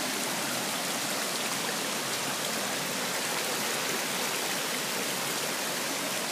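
Creek water rushing steadily over rock ledges, an even hiss.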